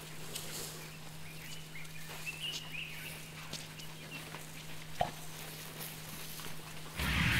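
Field sound of an elephant herd walking past: soft footfalls and rustling in dry grass, with a faint high wavering call about two seconds in, a sharp snap about five seconds in, and a louder rustle near the end, over a steady low hum.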